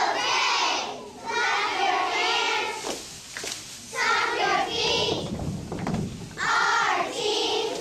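Young children's voices chanting a cheer together, in four loud phrases of about a second each with short breaks between them.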